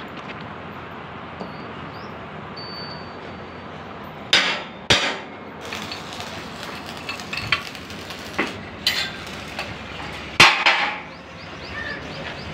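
A hammer striking welded steel: a handful of sharp metallic clanks that ring briefly, the loudest two a little over four seconds in and one about ten seconds in, over steady background noise.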